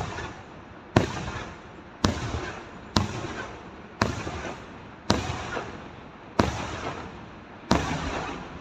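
Aerial firework shells bursting one after another, about one a second: seven sharp bangs, each trailing off over the following second.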